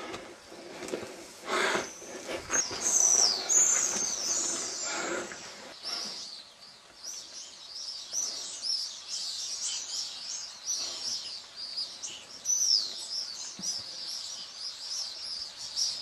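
Many small birds chirping in a constant run of short, high calls that rise and fall. In the first few seconds there is also some lower rustling and knocking.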